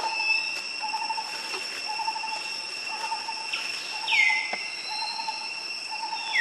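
Woodland ambience: a bird gives a short hooting note over and over, about twice a second, against a steady high-pitched insect drone. A louder call slides downward in pitch about four seconds in, and another comes near the end.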